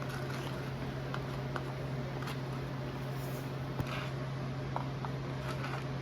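Steak and cheese cooking in a cast iron pan, a faint even sizzle under a steady low hum, with a few light taps and clicks.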